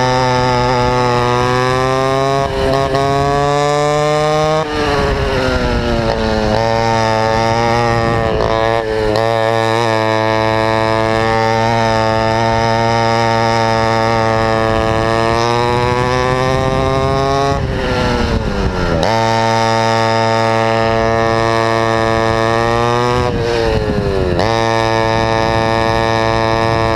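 Vintage go-kart's two-stroke engine at full throttle, heard from on board, its pitch climbing along the straights and dropping sharply each time the throttle is lifted for a corner, four times, most deeply about two-thirds of the way through.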